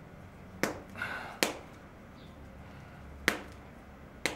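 Four sharp snapping clicks, unevenly spaced, as a wad of Prestik putty is stretched and worked between the fingers to warm it up and make it sticky.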